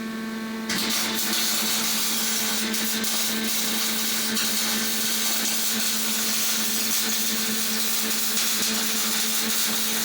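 MIG (semi-automatic) welder arc laying a seam on the cracked steel mechanism plate of a computer chair: a steady crackling hiss that starts abruptly about a second in, over a constant electrical hum.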